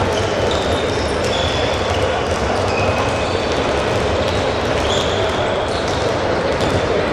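Many handballs being dribbled at once, a dense, steady patter of bounces on a sports-hall floor, echoing in the large hall, with short high squeaks of shoes on the court.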